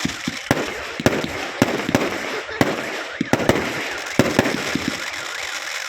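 Fireworks going off: sharp bangs at an irregular two or three a second over a continuous noisy wash.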